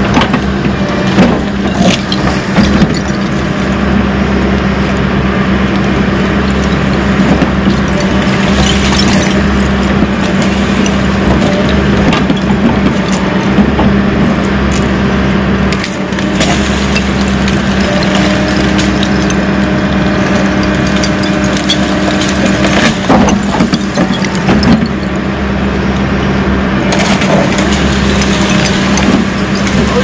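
Backhoe engine running steadily under load while its bucket rips through roots and dirt, with repeated cracking and snapping of roots and knocks of the bucket.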